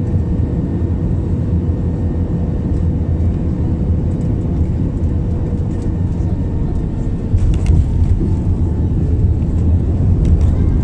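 Airliner cabin noise during landing: a loud, steady low rumble of the engines and airflow with a faint steady hum, growing louder with rattling from about seven seconds in as the plane is on the runway.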